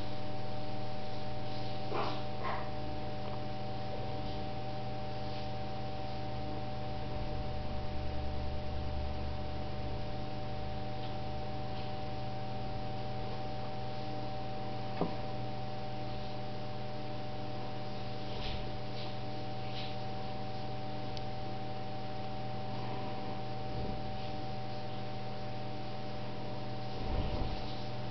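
Steady electrical hum made of several fixed tones, with a few faint clicks and light taps now and then.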